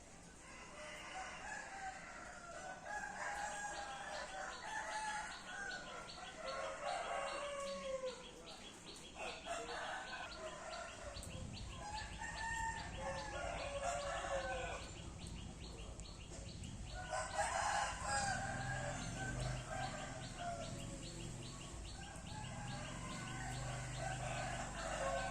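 Roosters crowing again and again, the long arched crows overlapping one another, over a fast, even ticking in the background. A low rumble joins in about eleven seconds in.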